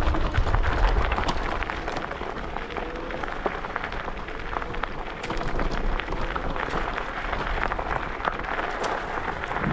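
Riding noise from an electric scooter: wind rumbling on the microphone under a dense, continuous crackle and rattle, with a faint whine in the middle.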